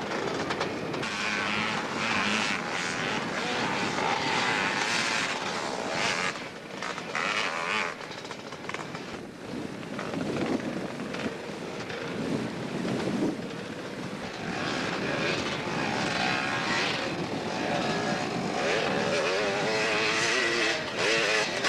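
Dirt bike engines revving hard as the bikes climb a steep dirt hill, the pitch rising and falling with the throttle.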